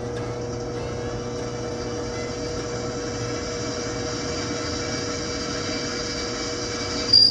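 Drill press running, its bit drilling through steel angle iron: a steady motor hum under the grind of the cut, with a short, loud high-pitched squeal near the end.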